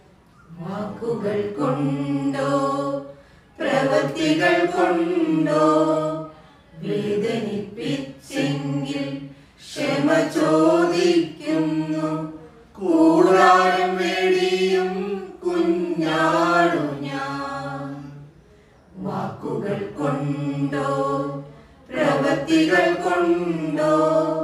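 A small choir singing a Malayalam hymn for the departed without accompaniment, in phrases of a few seconds broken by short pauses for breath.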